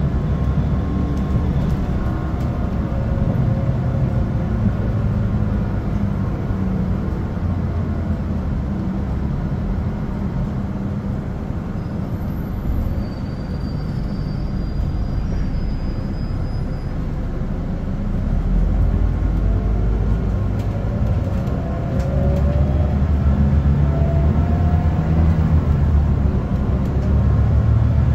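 Cabin sound of a Mercedes-Benz OC500LE bus running on its 12-litre six-cylinder turbocharged CNG engine through a ZF Ecomat automatic gearbox, heard from inside near the back. The drone eases off around the middle as the bus slows for a stop, then builds again as it pulls away, with the gearbox whining faintly.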